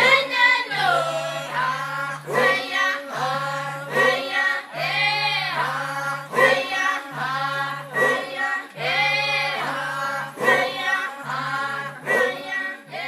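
A choir singing in short phrases with brief breaks between them, over a low held note that drops out at each break.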